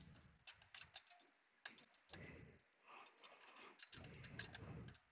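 Faint, irregular metallic clicks and rattles of a dual-clutch pack being shaken and turned by hand to seat it onto the transmission's input shaft and pump gear.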